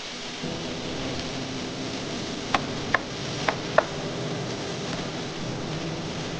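Steady cooking hiss with four quick metallic clinks of a utensil against cookware, bunched together in the middle, each with a short ring.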